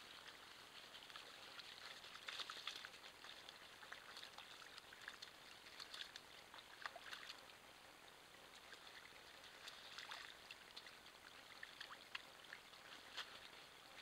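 Faint wet squelching and crackling of a North American river otter moving and rolling in mud, shallow water and wet leaves. The crackles come in several short clusters over a faint steady hiss.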